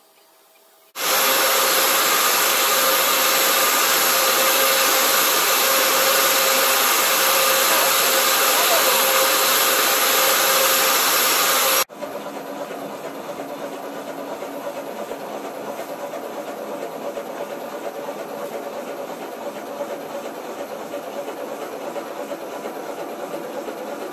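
Servo-controlled double-sided foam cutting machine running: a loud, steady hiss-like machine noise that starts about a second in, then changes to a quieter, rougher steady run about halfway through.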